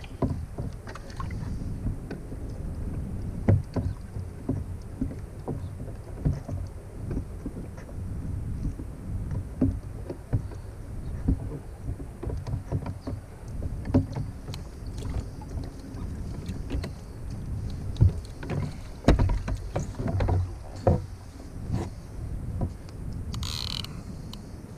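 Wind on the microphone and water sloshing around a kayak, with scattered knocks and clicks from handling the bent rod and reel while a fish is fought.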